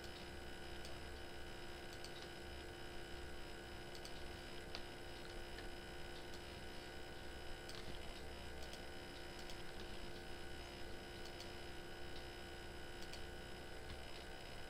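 Steady low hum and whine of electrical and computer noise, with a few faint, scattered computer-mouse clicks.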